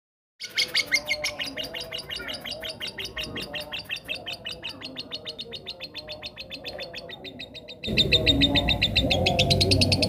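Lovebird chirping in a long, fast, unbroken trill of sharp high chirps, about eight a second. A little before the end it gets louder and a low rumble joins underneath.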